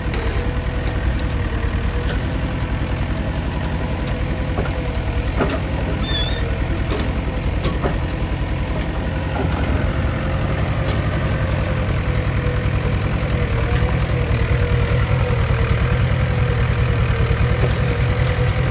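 JCB 3DX backhoe loader's diesel engine running steadily with a low, pulsing rumble and a steady whine, a few short clicks over it. It gets a little louder about two-thirds of the way through.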